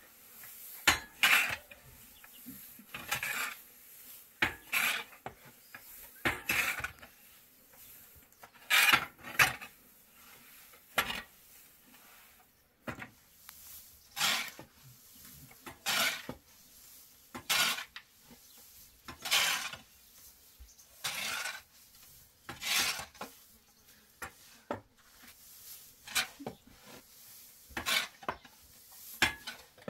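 A utensil scraping against cookware in short repeated strokes, about one every one and a half to two seconds.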